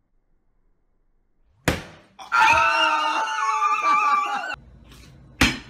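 A sharp knock, then people screaming excitedly for about two seconds, then another sharp knock near the end.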